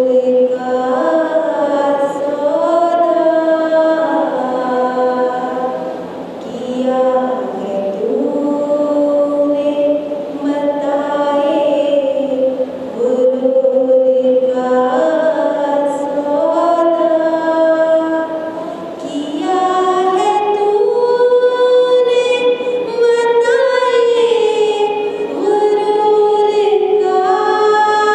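A woman singing an Urdu tarana solo into a handheld microphone, without instruments, in long melismatic phrases with held, sliding notes and brief breaks between them.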